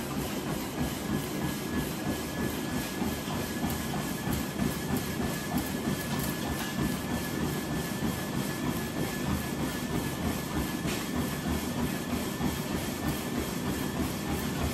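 Treadmill in use by a runner: even footfalls on the moving belt, about three a second, over the steady hiss of the belt and a thin whine from the motor.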